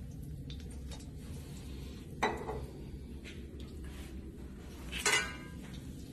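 Metal cookware clinking twice, about three seconds apart, the second clink the louder, over a low steady hum.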